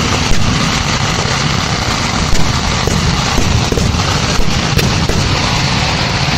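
Kerala temple fireworks (vedikkettu) in full barrage: a dense, unbroken crackle and rumble of many firecrackers going off together, with sharper bangs standing out about a third of a second and two and a half seconds in.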